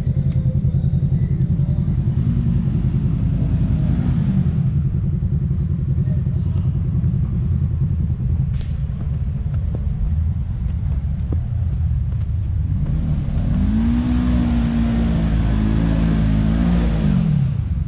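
Side-by-side UTV engine running with a rapid low throb. It revs up briefly a few seconds in, then revs again and holds high for about four seconds before dropping back near the end, with a rising hiss while it is held high.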